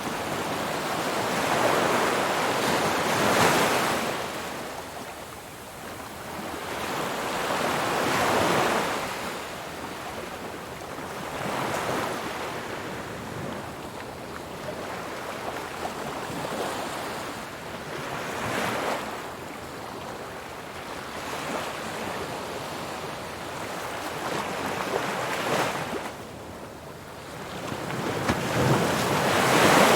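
Ocean waves breaking and washing ashore in slow surges every few seconds, the loudest one near the end, with some wind noise on the microphone.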